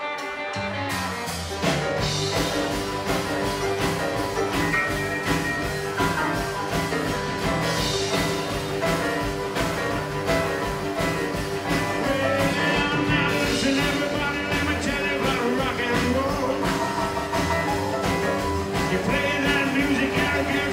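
Rockabilly band playing live: upright bass, drum kit, guitar and keyboard together in a driving rock and roll number.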